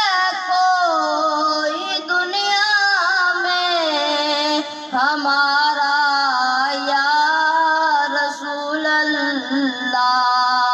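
A boy singing a naat unaccompanied into a microphone, drawing out long ornamented notes whose pitch wavers and bends, with only short breaks for breath.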